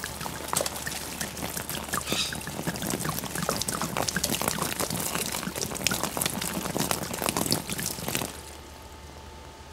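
A stream of water poured onto the rubber-coated nylon lid of an ALICE pack, splashing steadily on the sealed fabric: a water test of the Flex Seal waterproofing. The pour stops shortly before the end.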